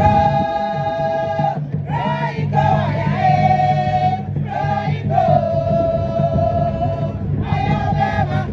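Music with singing: a voice sings long held notes, with short breaks between phrases, over a steady low accompaniment.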